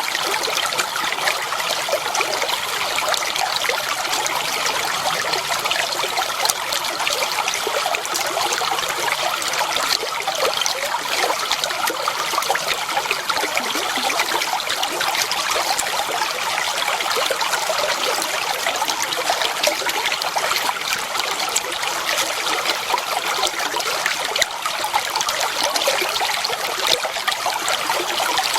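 Clear water flowing and trickling steadily, a constant babble of small splashes.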